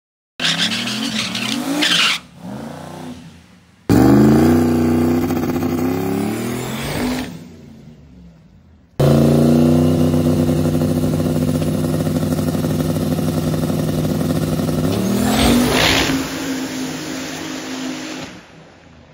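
Turbocharged 4x4 pickup truck engines on a drag strip, heard in several cut-together clips: hard revving, then an engine held at steady high revs on the line to build boost. About fifteen seconds in it rises in pitch as the truck launches, then fades as it pulls away down the track.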